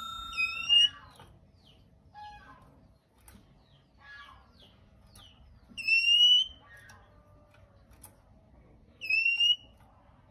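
Male oriental magpie-robin calling: three loud, slightly rising whistled notes, about half a second, six seconds and nine seconds in, with softer, varied short chirps and phrases between them.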